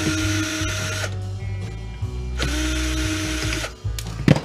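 Cordless drill-driver spinning screws out of a VCR's tape-deck chassis: two short runs, each rising in pitch as the motor spins up and then holding steady for about a second. A sharp click near the end.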